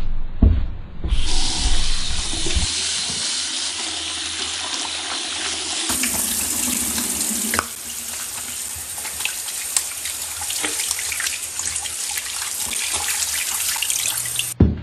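Water running steadily, starting about a second in, changing abruptly about six seconds in, and cutting off suddenly near the end.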